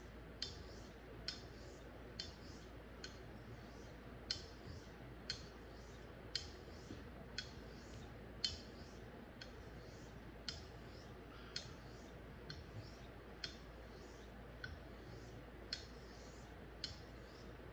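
Straight razor being honed on a Japanese natural whetstone with slurry: a sharp click about once a second as the blade is turned over on its spine between strokes, with faint scraping of the strokes in between.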